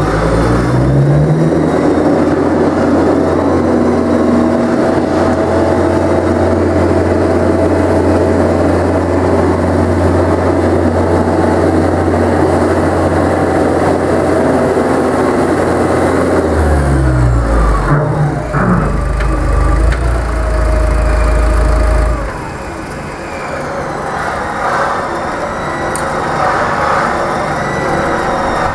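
Mercedes 904 four-cylinder diesel engine of a Getman A64 boom truck driving the truck along: it speeds up at the start and runs steadily, then falls in pitch as the truck slows. After a brief rev it drops to a quieter idle about two-thirds of the way through, once the truck has stopped.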